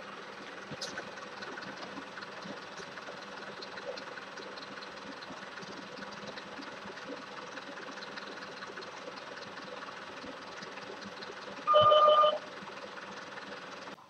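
Steady street background noise, then about three-quarters of the way through an electric doorbell buzzes once, a loud steady tone lasting under a second.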